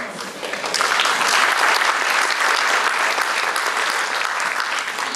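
Audience applauding: a dense clatter of many hands clapping that builds over the first second, then holds steady.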